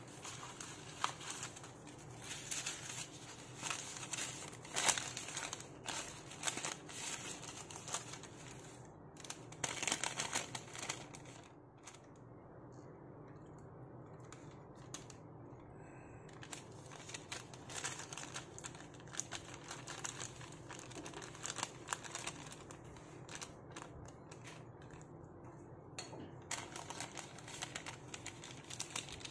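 Parchment paper rustling and crinkling in the hands as sheets are picked up and folded around a spoonful of fish paste, in irregular bursts with a quieter stretch near the middle.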